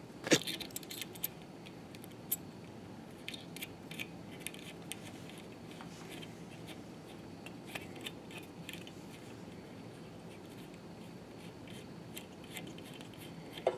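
Small metal clicks and clinks as the spring, washers and knurled tension nut of a Tippmann Boss stitcher's thread tensioner are handled and fitted back onto the threaded post. The sharpest click comes just after the start, and more scattered clicks follow in small clusters.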